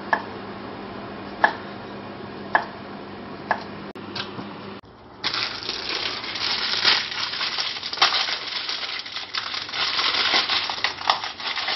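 A knife slicing a cucumber on a wooden chopping board, one sharp chop about every second, over a low steady hum. From about five seconds in, plastic packaging crinkles and rustles loudly as it is torn open and handled.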